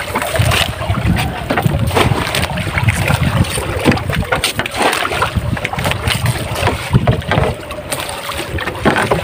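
Noise aboard a small boat on open water: wind buffeting the microphone and water moving around the hull, with frequent irregular knocks and splashes.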